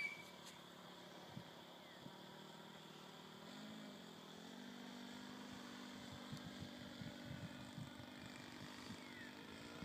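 Faint, steady drone of a radio-controlled old-timer model aircraft's engine in flight, its pitch wavering briefly about four seconds in.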